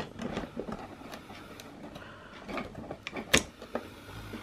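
Handling noise as a wrist remote-control watch with a rubber strap is taken out of its box: small clicks, knocks and rustles, with one sharp click about three and a half seconds in.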